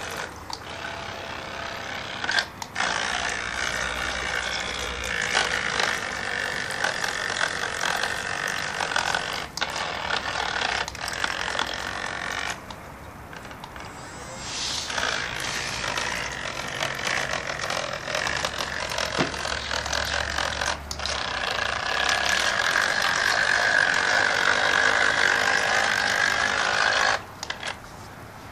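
Small electric motor of a homemade remote-control boat whining as it drives the boat through water, its pitch shifting slightly. It cuts out briefly a few times, drops low for about two seconds midway, and stops suddenly near the end.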